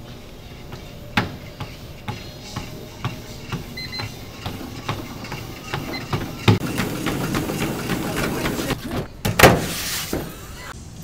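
Footfalls pounding on a treadmill belt, regular at first and then quickening and crowding together as the belt speeds up. There is a short console beep about four seconds in, and a loud crash about nine and a half seconds in.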